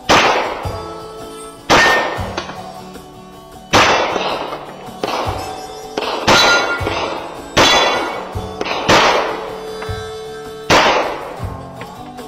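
Pistol shots fired one at a time, every one and a half to two and a half seconds, each followed by a ringing clang, over background music.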